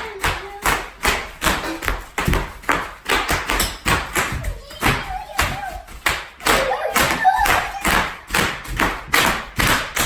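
Bubble wrap popping underfoot as it is danced on: a quick, irregular run of sharp pops and thuds, about three or four a second, with voices faintly heard at times.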